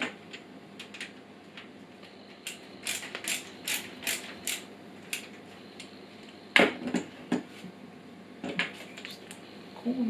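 Screwdriver turning screws into a PC case's fan mounts: a run of short scraping strokes about two a second, then a sharp knock and a few lighter clicks.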